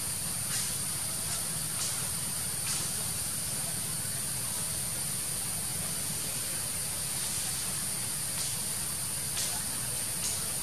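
Steady forest ambience: a constant hiss under an even, high-pitched insect drone, with a few faint ticks.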